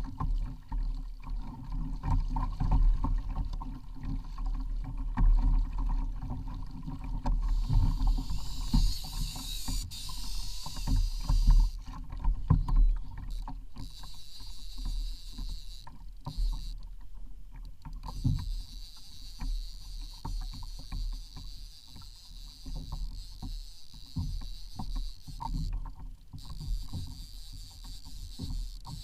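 A kayak moving on the sea: water sloshing and lapping against the hull, with irregular small knocks and bumps from the boat and a low rumble.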